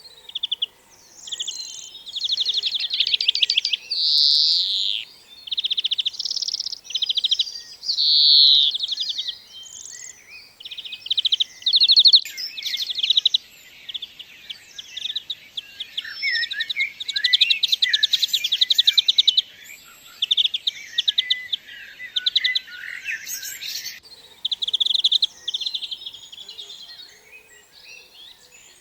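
European greenfinch singing: phrases of rapid, buzzy trills repeated throughout, broken by drawn-out wheezes about four and eight seconds in.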